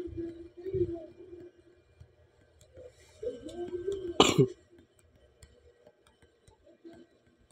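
A person's voice making short, wordless sounds at a wavering pitch, twice, with a sudden sharp noise about four seconds in.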